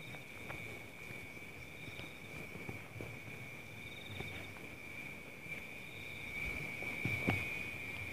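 Night insects calling: a steady high trill, with a second, higher pulsing chirp that comes and goes every couple of seconds. Scattered soft knocks from movement through the undergrowth sound under it, the loudest about seven seconds in.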